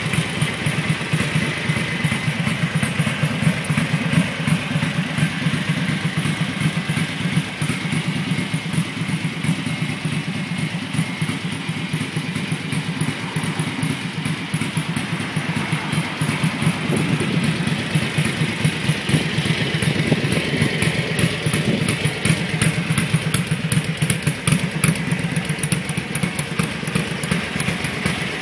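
1983 Ducati 900 Mike Hailwood Replica's air-cooled 90-degree V-twin engine idling steadily.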